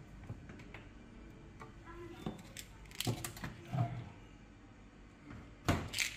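Kitchen wall cabinet doors being opened and closed on their hinges, with several knocks and thuds, the loudest near the end.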